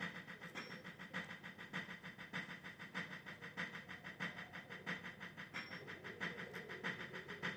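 Electronic drum sounds from a Roland TD-07 drum module playing a fast, even beat of about five hits a second, with stronger accents at regular intervals.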